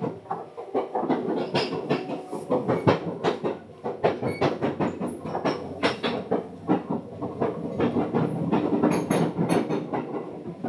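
Seibu 10000 series train running, heard from inside the car: a steady rumble of the running gear with dense, irregular clicks and clatter of the wheels over the track.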